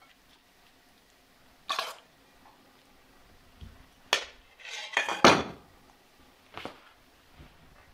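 Clinks and clatters of a metal serving spoon and a stainless steel bowl against a ceramic plate while shredded cabbage is served: one clink about two seconds in, a cluster of louder clatters a second later, and a lighter knock near the end.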